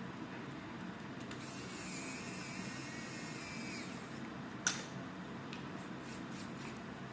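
A small motor whines at a high pitch, starting about a second in and stopping about four seconds in, over a steady low hum. A single sharp click follows.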